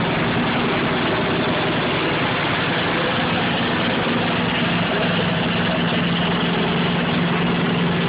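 Tractor engine idling steadily, a constant low hum.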